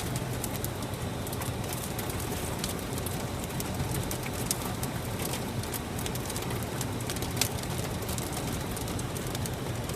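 Heavy storm rain falling steadily, with scattered sharp ticks of hailstones striking and one louder hit about seven and a half seconds in.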